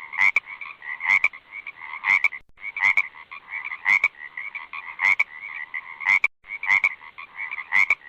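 Frogs calling in a dense chorus, a steady pulsing trill with louder, sharp calls standing out about once a second. The sound drops out briefly twice, about two and a half and six seconds in.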